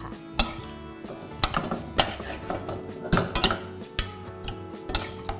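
Metal spoon clanking and scraping against a stainless steel saucepan as pork liver salad is tossed, in a string of irregular clanks. Background music plays underneath.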